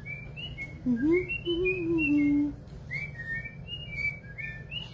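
A steady run of short, high whistle-like chirps, several a second, with a person humming a short rising-and-falling phrase from about a second in, the loudest part.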